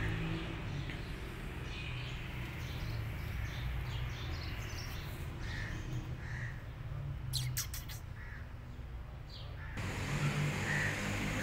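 Birds calling outdoors, a few short calls here and there, over a steady low background hum, with a brief cluster of sharp clicks a little past the middle.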